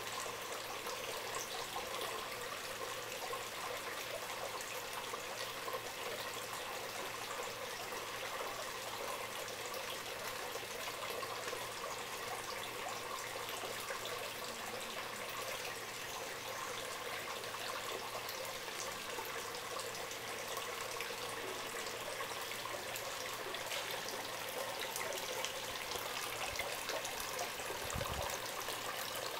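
Water trickling steadily from a bamboo spout and splashing onto rock.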